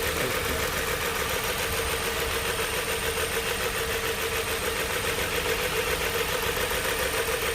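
Nissan Murano V6 engine idling roughly, its loudness pulsing fast and unevenly. It is the misfire of cylinders 3 and 4, which the mechanic traces to burnt-out, shorted spark plugs.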